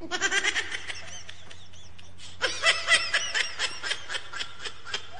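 High-pitched laughter in quick, rhythmic bursts: a short bout at the start, then a longer one from about two and a half seconds in.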